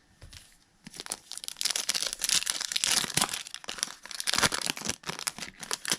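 A Topps Holiday Baseball card pack's wrapper being torn open and crinkled. It is a dense crackle that starts about a second in and thins out near the end.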